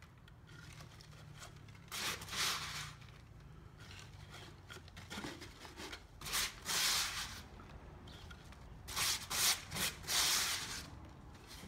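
Gloved hands scooping damp hempcrete mix (hemp hurd wetted with lime binder and water) out of a plastic bowl and dropping it into a wooden form: a few rough scraping, rustling bursts.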